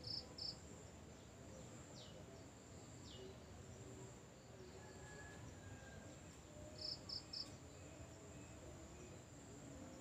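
Faint, steady high-pitched insect trill, with a few short high chirps over it: two near the start, two brief falling notes around two and three seconds in, and three quick ones about seven seconds in.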